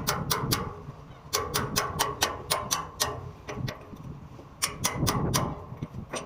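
Hammer blows on metal, in three quick runs of about four or five strikes a second, each strike ringing briefly.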